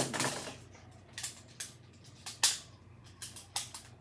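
Plastic magnetic building tiles being handled: a brief clatter at the start, then a series of sharp clicks as tiles snap together or are set down, the loudest about two and a half seconds in.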